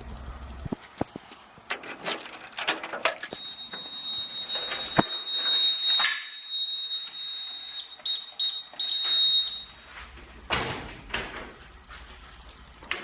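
Door clunks and rattles, with a steady high-pitched electronic beep that comes in about three seconds in and holds for about six seconds before stopping; more knocks follow near the end.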